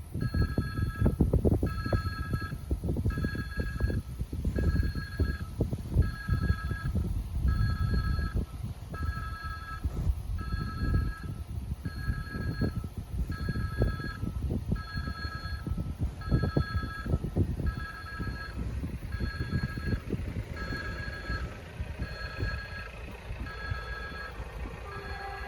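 Railway level crossing's electronic warning signal beeping in a steady pulse, about once every three-quarters of a second: the crossing has been triggered and a train is approaching. Wind buffets the microphone underneath.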